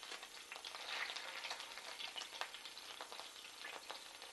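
Faint sizzling and crackling of chicken pieces and hot oil in a frying pan, with scattered small pops.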